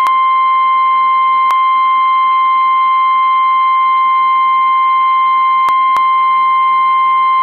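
NOAA Weather Radio 1050 Hz warning alarm tone: one loud, steady, single-pitched tone with a few brief clicks, cutting off sharply near the end. It is the alert that announces a severe thunderstorm warning broadcast.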